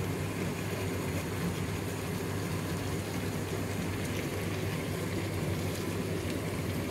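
Steady low hum with an even rushing noise over it: the background drone of a kitchen with gas burners lit.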